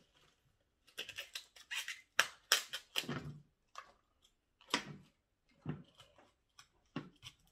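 Fresh artichoke being peeled with a small knife: an irregular series of crisp snaps and cuts as the tough outer leaves are pulled off and trimmed, with a few duller knocks among them.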